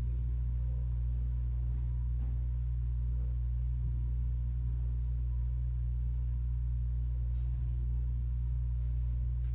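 Steady low hum with no change in level, the background drone of the church's sound feed.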